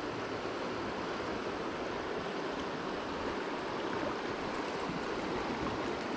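Steady rushing of a shallow river run flowing over gravel.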